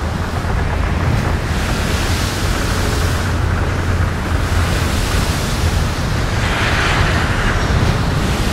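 Steady, loud rushing noise over a low rumble, swelling briefly in its higher part about seven seconds in.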